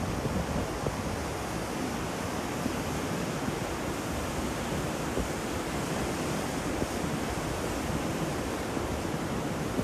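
Steady rushing storm noise of wind and water, an even roar with no breaks.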